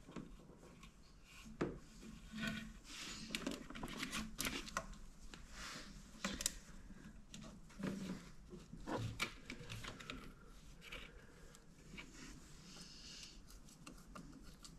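Faint, irregular clicks, taps and rubbing as hands work a rubber coolant hose back onto its pipe in a car's engine bay.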